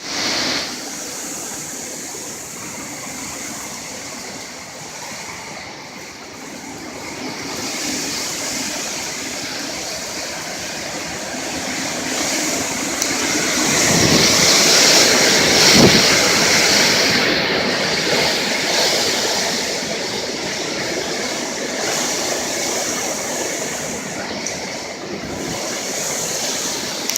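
Hurricane wind roaring steadily like a freight train, swelling to its loudest about halfway through, with a couple of dull thumps near the peak.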